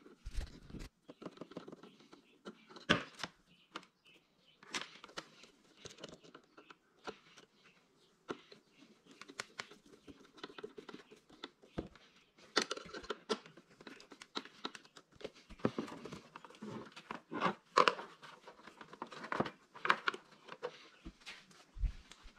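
Wires and plastic connectors being handled and tucked into place: irregular rustling and crinkling with scattered small clicks, no steady sound.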